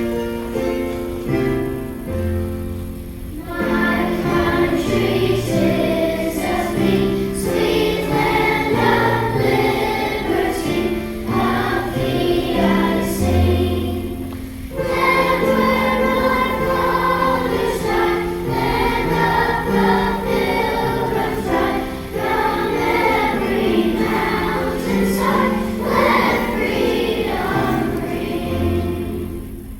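A choir singing a song with instrumental accompaniment, after a few seconds of instrumental introduction. The singing stops briefly about halfway through, then fades out near the end.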